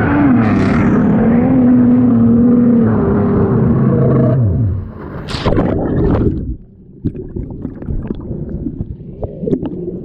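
Stand-up jet ski's two-stroke engine running at low speed, its pitch dipping early on and then winding down and dying about four and a half seconds in. Water splashing follows as the ski goes into the water, then quieter sloshing with scattered small clicks.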